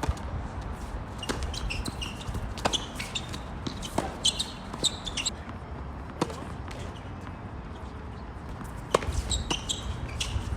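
Tennis rally: a ball struck by rackets and bouncing on the court, sharp pops every second or two, with sneakers squeaking between shots and wind rumbling on the microphone.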